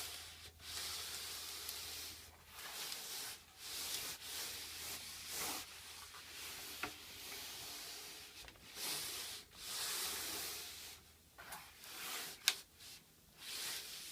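EVA foam liner rubbing and scraping as it is pushed and pressed down into a tool box drawer, in repeated strokes of about a second each, with one sharp click near the end.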